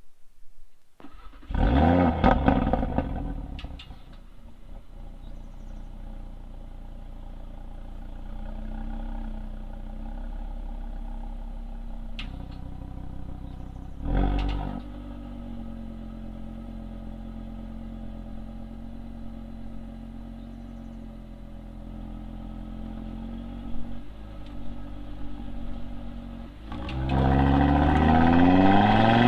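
Audi RS3's 2.5-litre inline five-cylinder engine heard at the exhaust: a short loud burst of revs about two seconds in, then steady running with a brief blip midway, and a hard acceleration with rising pitch near the end.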